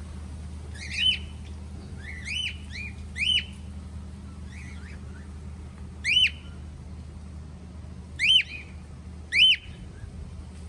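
Caged parrots squawking: loud, short calls that rise and fall in pitch, one every second or two with quieter calls between, over a steady low hum.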